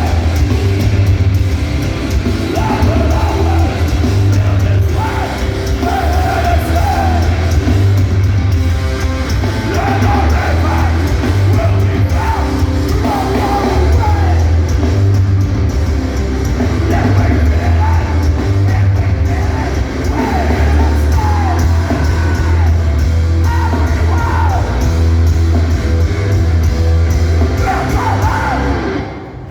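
Hardcore punk band playing live and loud: distorted guitars, bass and drums under shouted vocals. The sound dips suddenly near the end.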